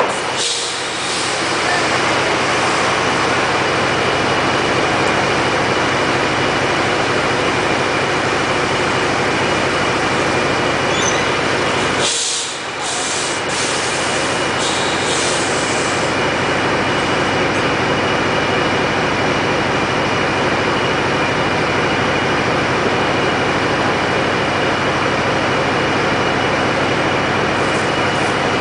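Mobile crane's diesel engine running steadily under load during a heavy lift, with a steady high whine; the noise drops briefly about twelve seconds in.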